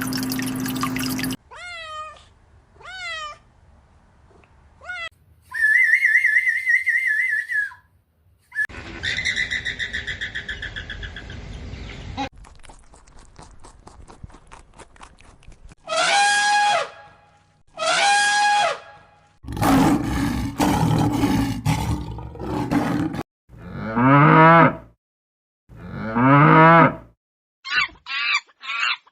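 A string of different animal calls edited one after another: a few short falling whistled chirps, a warbling call, a rapid trill, then pairs of louder drawn-out calls, the last ones deep with rising and falling pitch.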